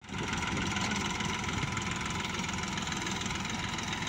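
Old Massey Ferguson tractor's diesel engine running steadily under load as it drags a levelling blade through loose sandy soil.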